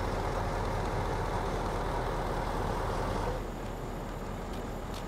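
Coach bus's diesel engine idling steadily, a low rumble under outdoor noise, dropping slightly in level about three seconds in.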